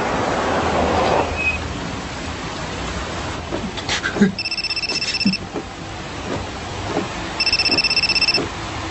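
Mobile phone ringing unanswered with a fast electronic trill, in two bursts of about a second each, about three seconds apart. A rushing whoosh is heard in the first second or so.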